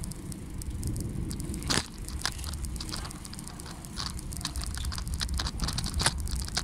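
Bicycle ride: a steady low rumble of wind on the microphone and road noise, with scattered sharp clicks and rattles. The loudest clicks come about two seconds in and again near the end.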